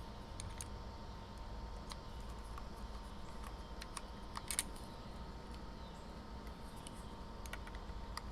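Scattered light clicks and taps of small parts and a tool being handled while the chain tension on a 24-volt mini chainsaw is adjusted. The loudest clicks come as a pair about four and a half seconds in.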